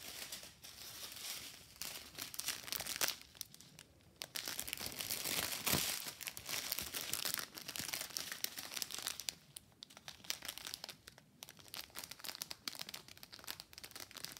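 Crinkling and crackling of thin clear plastic drill packets being handled and flexed, in irregular bursts, loudest about three and six seconds in and sparser toward the end.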